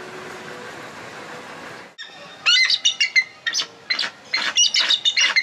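Bald eagle calling: a rapid run of shrill, high chirping notes that starts about two seconds in, after a quieter stretch.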